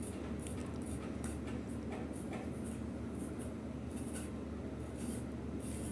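Faint, irregular scratching and rustling of dry breadcrumbs being sprinkled by hand and a steel spoon moving through a bowl of ground chicken mixture.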